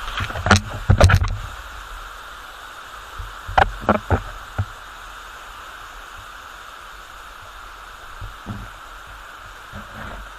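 Steady rushing hiss of a waterfall. Loud thumps and knocks come in the first second or so, then a few more sharp knocks about four seconds in.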